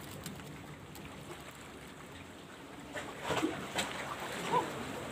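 Sea water lapping against a rocky shore with wind on the microphone, then a few sharp clicks and rattles about three seconds in and a short squeak near the end.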